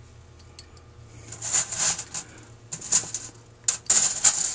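Hands handling small screws and the carburetor body on the work surface. After about a second come several short scraping and rustling sounds in three brief clusters.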